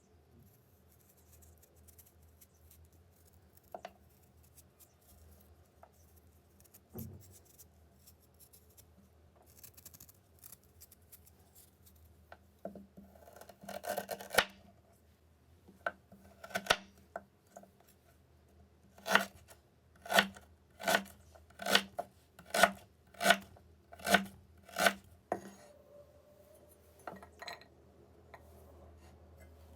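Food being cut with a blade in a kitchen: scattered quieter handling and cutting noises, then a run of about eight sharp, evenly spaced cuts, a little more than one a second, in the second half.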